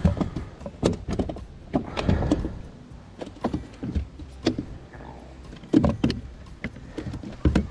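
Spinning reel being cranked, with irregular knocks and thumps on the plastic kayak hull.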